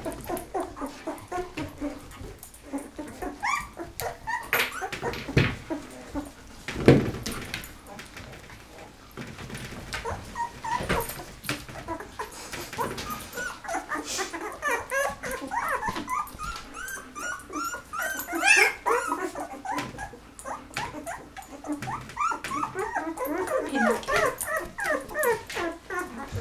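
A litter of 13-day-old golden retriever puppies whimpering and squealing, many short high squeaks overlapping one another. There are a couple of thumps in the first third.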